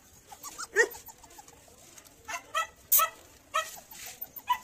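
Puppies yelping and whimpering in short, high calls, about seven of them at irregular intervals.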